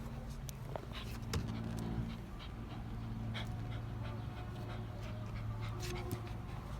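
Miniature schnauzer panting excitedly in short, irregular breaths over a steady low hum.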